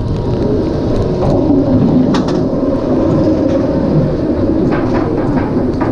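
Steel roller coaster train running on its track with a loud, steady rumble of wheels and wind rushing over an onboard camera microphone. A run of sharp clicks starts near the end.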